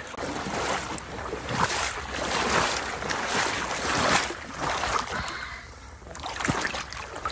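Marsh water sloshing and splashing in irregular pulses, as of someone wading through shallow water, easing off about five seconds in.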